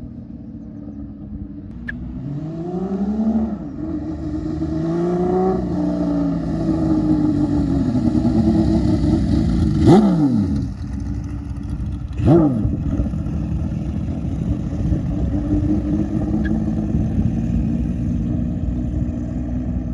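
Benelli 750 Sei's inline six-cylinder engine through a 6-into-1 exhaust as the motorcycle accelerates toward the listener, its pitch climbing twice, then passes close by about halfway through with a sharp drop in pitch. A second brief swoop follows a couple of seconds later, and a steady engine tone runs on as it rides away.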